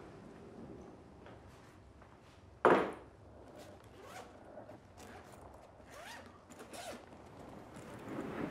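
A suitcase being handled: one sharp thud about two and a half seconds in, then a run of small clicks and rasps from a zipper being worked.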